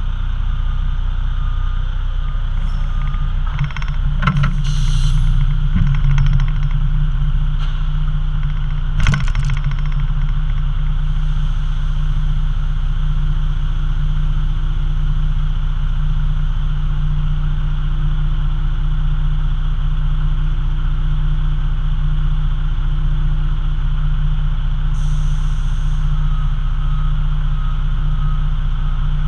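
Diesel engine of a B-double tipper semi-trailer truck running steadily, a loud low hum. A few short clunks come about four to five seconds in and again about nine seconds in, and a brief hiss near the end.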